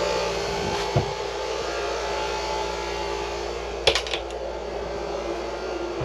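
Steady whir of a Mabru SC05DC 12-volt DC cabin air conditioner running, blower air with a steady hum under it. A short knock about a second in and a sharp click about four seconds in.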